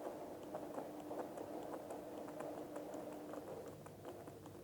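Faint, irregular small clicks and ticks of liquid soap being poured from its bottle into a small dish, with a faint steady hum that stops about three and a half seconds in.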